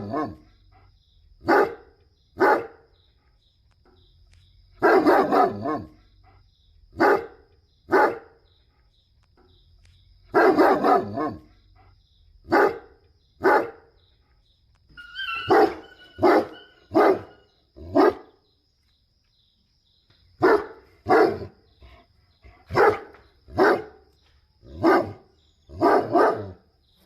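A dog barking in repeated bouts: longer volleys of quick barks at the start and about five and ten seconds in, then mostly single and paired barks spaced about a second apart. A faint steady high tone runs underneath.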